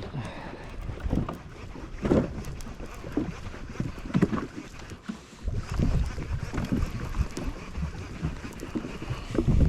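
Wind buffeting the microphone, with water slapping against the hull of a jet ski.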